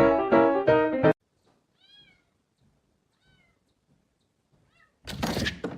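Piano music cuts off about a second in; then a cat meows faintly three times, each call rising and falling in pitch. Near the end comes a sudden loud, noisy thump.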